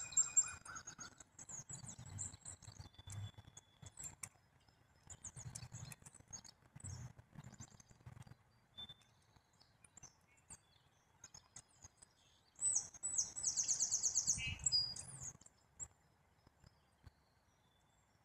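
Songbirds chirping with scattered high notes, and a fast high trill about two-thirds of the way through, the loudest sound. Faint short taps run through it, fitting a bird pecking at a birdseed bell.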